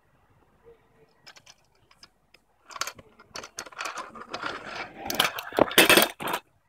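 Freestyle scooter rolling over rough concrete up to the camera, its wheels and parts rattling in a run of clicks and knocks that grows louder, strongest about five to six seconds in.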